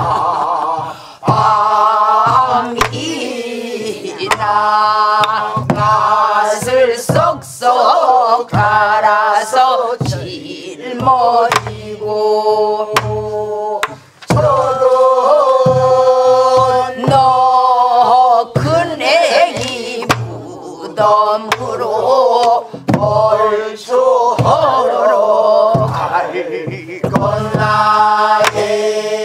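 A group of men and women singing a Namdo folk song together, accompanied by sori-buk barrel drums struck in a steady rhythmic pattern. There are brief breaks in the singing about a second in, near 10 s and near 14 s.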